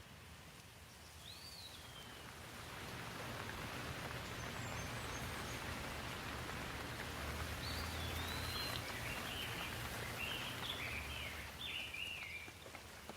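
Rain falling on leaves, swelling to a steady shower a couple of seconds in and easing off near the end. A bird gives one short call near the start and a run of quick chirps in the second half.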